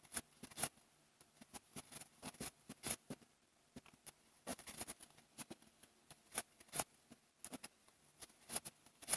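Faint, irregular soft clicks and rustles of a crochet hook working yarn, several a second, as stitches are made one after another.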